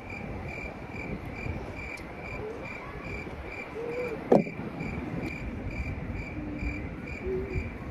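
An insect chirping at an even pace, about two short chirps a second, over a steady outdoor hiss. A single sharp knock sounds about halfway through.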